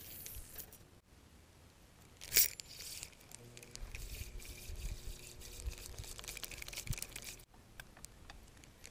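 Handling noise against a body-worn action camera: rustling, with one sharp knock a couple of seconds in. About three and a half seconds in, a steady low motor hum starts and runs for about four seconds before cutting off suddenly.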